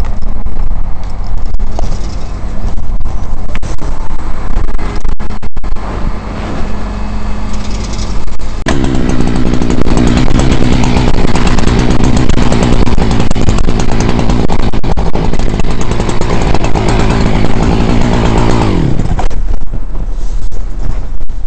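Two-stroke chainsaw idling, then revved up about nine seconds in and held at high revs for about ten seconds before the revs fall back to idle near the end.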